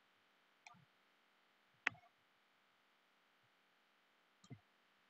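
Near silence broken by three faint computer mouse clicks, about a second in, near two seconds (the loudest) and near the end.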